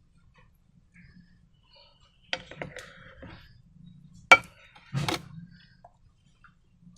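Objects being handled while making slime: a few sharp knocks and clinks, like containers or utensils set down and tapped. The loudest knock comes about four seconds in, with another just under a second later.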